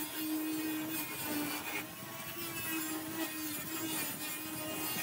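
4.5-inch angle grinder fitted with a metal-cutting disc running steadily as it cuts through a corrugated polycarbonate sheet. A steady motor whine sits over the rasp of the disc in the plastic.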